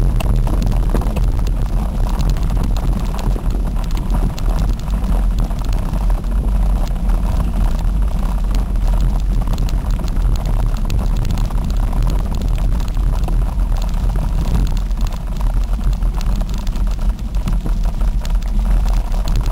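Wind buffeting the microphone of a camera moving fast along a rough dirt trail: a continuous low rumble with knocks and rattles from the bumpy ride.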